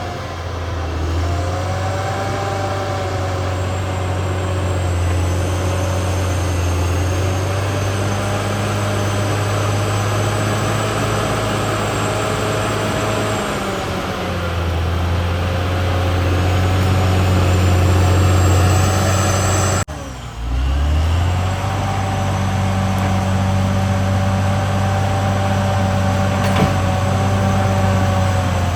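Caterpillar D6R XL bulldozer's diesel engine running steadily under work, with a higher whine over it that slowly rises and falls. The sound breaks off abruptly about two-thirds through and picks up again.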